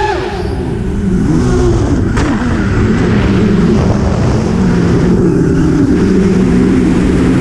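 Quadcopter's electric motors and propellers whirring over a rushing noise. The pitch drops sharply at the start as the throttle comes down, then stays low and wavers up and down, with a single tick about two seconds in.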